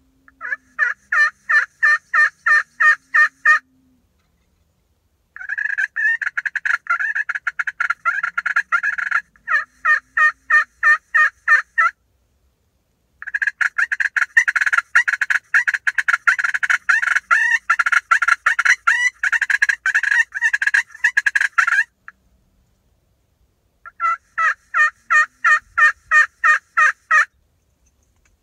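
Hand-worked turkey call imitating a hen: four loud runs of sharp, evenly spaced yelps at about three a second, the middle two runs longer and faster.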